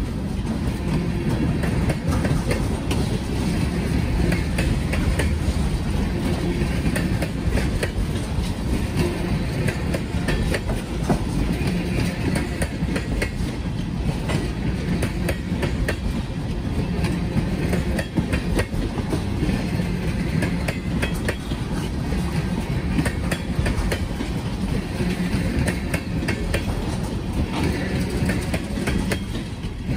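Freight train tank cars rolling past close by: a steady rumble of wheels on rail, with a quick irregular clatter of clacks from the wheels over the rail joints.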